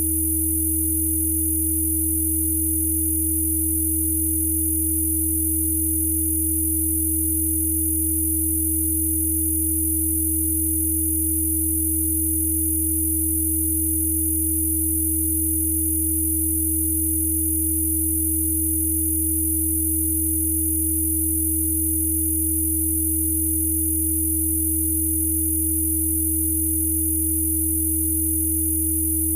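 A steady mix of electronic sine tones held without change: a strong low tone, a middle tone and faint very high-pitched ones. These are Spooky2 Rife frequencies played as audio.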